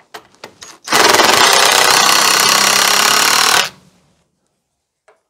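A few light clicks, then a cordless power driver running for about three seconds, driving a screw into a wooden support board.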